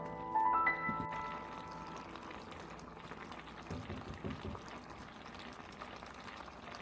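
Piano background music ends about a second in, leaving a faint steady liquid hiss of cooking, with a few soft low knocks near the middle.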